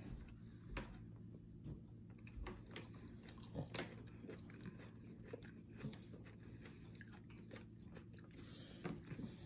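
Faint chewing and biting of a chocolate-coated Oreo cookies-and-cream ice cream bar, with small scattered crunches and clicks from the coating and cookie pieces, over a low steady hum.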